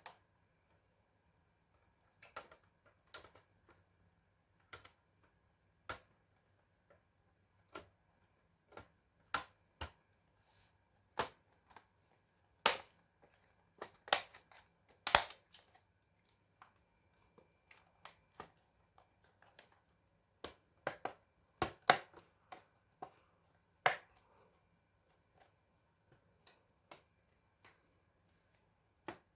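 Hands working on a laptop: irregular sharp clicks and taps of its plastic case and small parts being handled. They come singly or in short clusters, a few seconds apart, and are loudest and most frequent around the middle.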